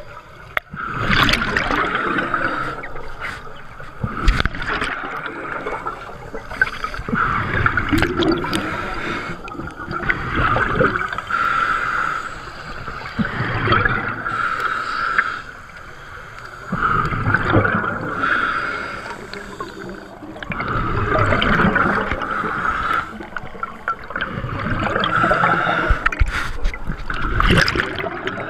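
Scuba regulator breathing underwater: a hissing inhalation alternating with a gurgling burst of exhaled bubbles, about one breath every three to four seconds.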